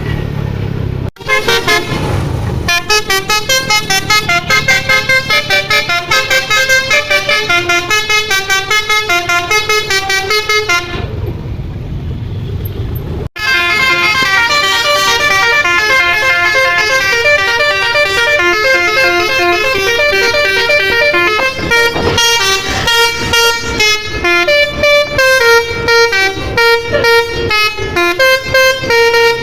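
Indonesian 'telolet' bus horn, a multi-trumpet Basuri horn, playing a fast melody of quickly changing notes over the low rumble of the bus engine. The tune breaks off briefly about a second in and again around eleven to thirteen seconds in, where only the engine rumble remains, and it ends in rapid short staccato toots.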